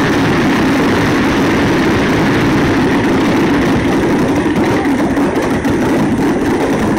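Fireworks barrage of many launches and bursts going off in quick succession, merging into one steady, loud rumble with no single bang standing out.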